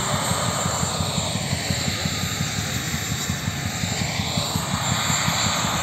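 Chinook tandem-rotor helicopter running with its rotors turning, giving a rapid, steady rotor beat over a continuous engine rush.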